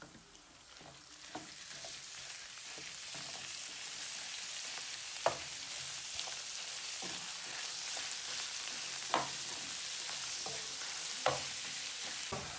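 Ground beef and chopped onions sizzling in hot oil in a frying pan, the sizzle growing louder as the meat starts to fry. A wooden spatula breaks up and stirs the meat, knocking against the pan a few times.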